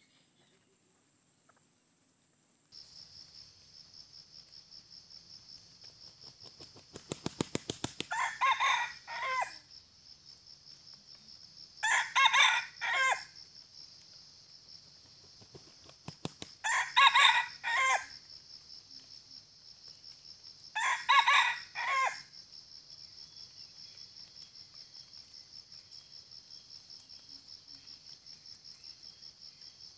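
Red junglefowl rooster crowing four times, each a short broken crow of about a second and a half, with a rapid burst of wing flaps just before the first. A steady high drone of crickets runs underneath.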